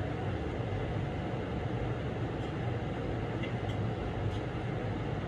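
Steady low hum in the background, with a few faint light clicks in the second half as the expansion pipe is worked into place on the cylinder.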